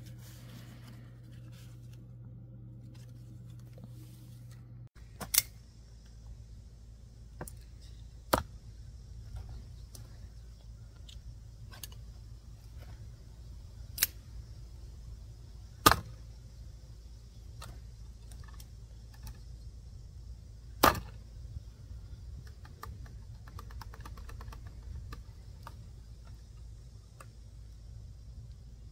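Sharp metallic clacks from out-the-front automatic knives being tested. There are about five loud ones, several seconds apart, with fainter clicks and handling noise between them.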